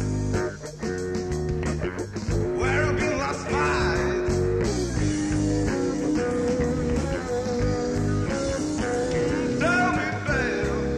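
Rock band playing: an electric guitar line with notes bending in pitch over bass and held chords.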